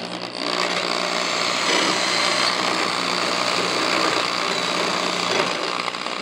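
Ryobi electric drill running steadily under load, its bit cutting into the sheet-metal quarter panel of a 1963 Buick LeSabre to drill out a spot weld. It comes up to speed about half a second in.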